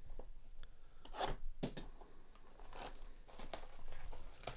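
Clear plastic shrink wrap being torn and crinkled off a sealed trading-card hobby box, in several short rips and rustles.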